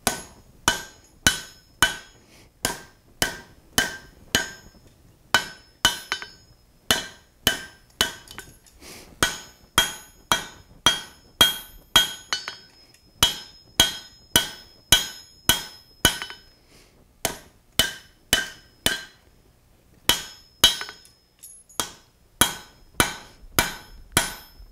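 Hand hammer striking a red-hot steel bar on an anvil in a steady rhythm, about two blows a second with a few short pauses, each blow ringing briefly. The blows bend the bar's end over into a right angle and set it down.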